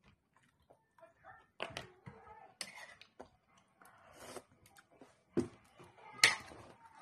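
Close eating sounds of a seafood meal: chewing and mouth noises as meat is picked from seashells by hand, with scattered clicks of shell and spoon. A sharp click stands out near the end.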